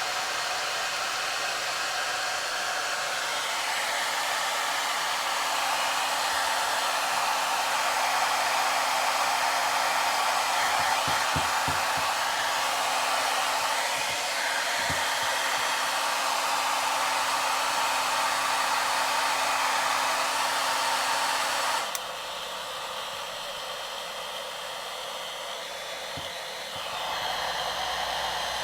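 Hair dryer blowing, a steady rush of air. About two-thirds of the way through it suddenly drops to a quieter rush, then grows louder again near the end.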